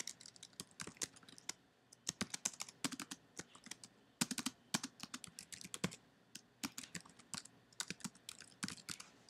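Typing on a computer keyboard: irregular runs of sharp key clicks with a few short pauses between them.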